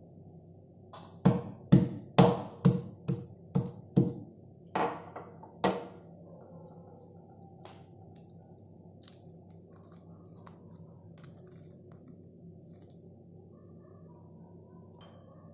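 About nine sharp knocks in quick succession as a boiled jackfruit seed is cracked to break its hard outer husk, followed by faint crackling as the husk is peeled off.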